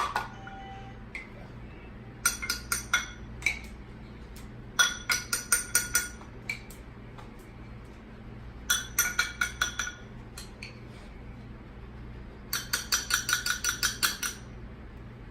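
A kitchen utensil tapping quickly and repeatedly against a bowl, in four bursts of ringing clinks. This is the sound of mayonnaise being knocked off a measuring cup or spoon into the sauce bowl.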